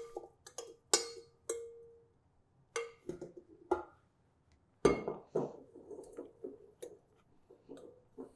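A stand mixer's coated flat beater knocking and scraping against a glass mixing bowl to free the streusel stuck to it: a series of sharp clinks, each leaving the glass ringing briefly, the loudest about five seconds in, followed by softer scraping and tapping.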